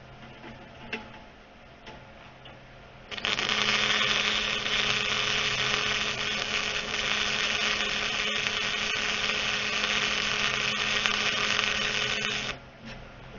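Flux-core wire welder arc sizzling steadily as a weld bead is laid. It starts suddenly about three seconds in, runs evenly for about nine seconds, and cuts off sharply when the trigger is released.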